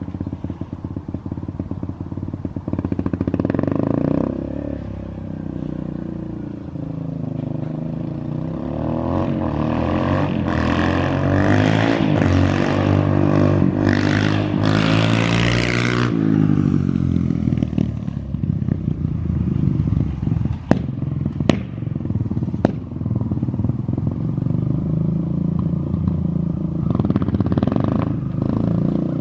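Kawasaki KLX140L's single-cylinder four-stroke engine running loud through an FMF Powercore 4 exhaust, revving up and down. Near the middle the pitch climbs for several seconds, then drops off sharply into steadier running, with a few sharp clicks.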